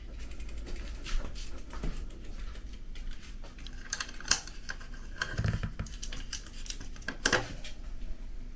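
Irregular light clicks and taps of hand tools and metal bicycle parts being handled during a repair, with a few louder knocks, one of them a dull thud about halfway through.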